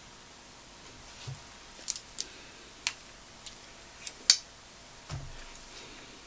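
A handful of light, sharp clicks and taps of a paintbrush against a watercolour palette while picking up and mixing paint, the loudest about four seconds in, with a couple of soft low thumps.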